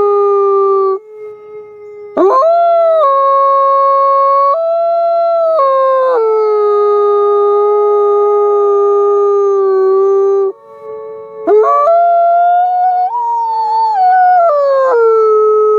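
Wolves howling: long, held howls in two overlapping voices, with a steep rise in pitch as a new howl starts about two seconds in and again near eleven and a half seconds in.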